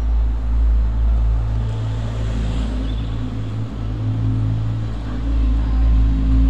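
Steady low rumble of vehicle engines and traffic, with a continuous outdoor noise over it.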